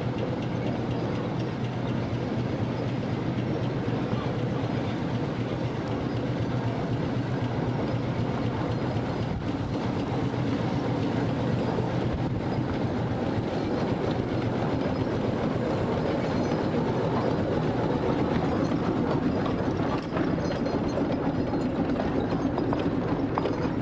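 Fowler B5 steam road locomotive running past with a steady mechanical clatter. Its iron-tyred wheels and those of the wagon it tows grind on the road, and the sound grows a little louder near the end as the engine draws level.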